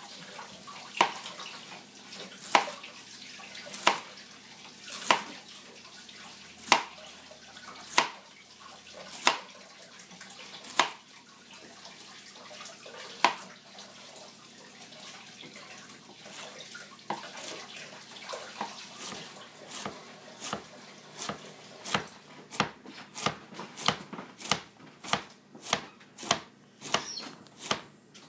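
Chef's knife cutting a peeled Moso bamboo shoot heart on a plastic cutting board: single sharp knocks about a second apart at first, then quicker, about two a second, in the second half as it is sliced into strips.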